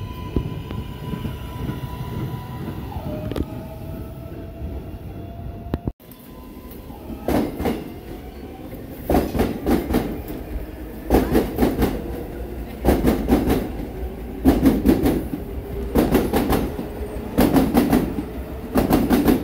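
R143 subway train: a steady electric motor whine that steps down in pitch, then, after a cut, wheels clacking over rail joints in repeated clusters. The clusters come a little closer together and a faint whine rises as the train gathers speed.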